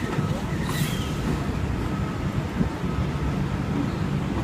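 V-set double-deck intercity electric train rolling slowly into the platform, a steady low rumble with a brief high hiss under a second in.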